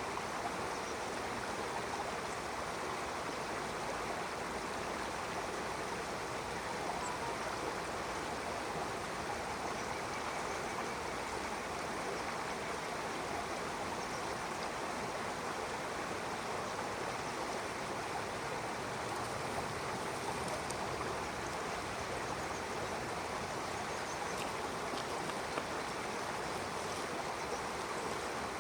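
Stream water flowing and rushing steadily, an even, unbroken wash of water noise.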